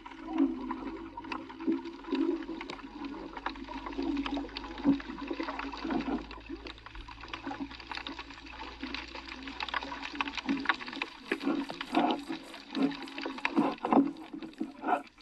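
Muffled underwater sound picked up by a camera in the sea: a low rushing murmur with many scattered sharp clicks and crackles.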